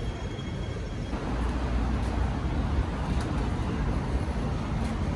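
City street traffic noise: a steady rumble of road vehicles that grows louder about a second in.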